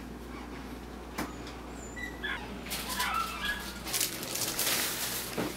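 A dog whimpering, several short high whines in the second half. A single knock about a second in, and a hiss of noise near the end.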